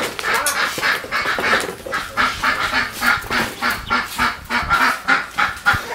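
Domestic waterfowl calling in a fast, even run of short calls, about four a second.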